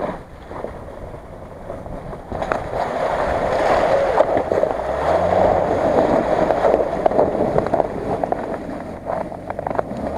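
Mercedes-Benz GL 350 SUV driving through a snowmelt puddle: water splashing and sloshing around the wheels, building from about two seconds in and loudest around the middle, with the engine revving under it. Short crackles near the end as the tyres come out onto snow.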